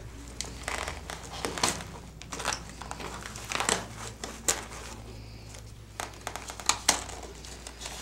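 Hands working a plastic-cased tactical computer loose from a nylon vest: fabric rustling and crinkling with scattered small clicks and scrapes as the elastic restraints are pulled free.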